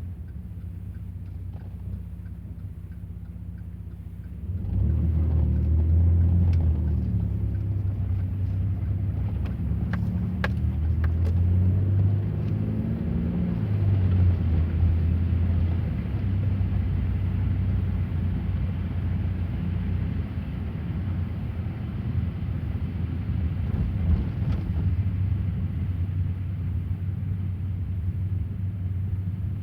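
Car engine and tyre rumble heard while driving, a steady low hum that gets louder about four seconds in.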